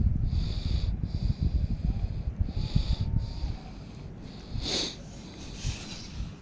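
Wind buffeting the microphone throughout, with a metal sand scoop stabbing into beach sand just under five seconds in and a short gritty scrape of sand after it.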